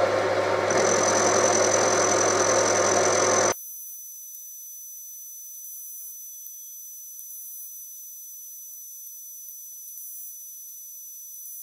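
Milling machine running with an end mill cutting a flat on stainless steel bar held in a collet block, joined by a steady high whine about a second in. After about three and a half seconds the full running sound drops out abruptly, leaving only a faint high whine and hiss.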